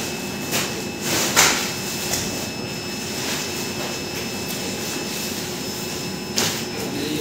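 Steady background noise in a mail sorting room, with a few short rustles and knocks as white woven mail sacks are handled: about half a second in, a second and a half in, and again near the end.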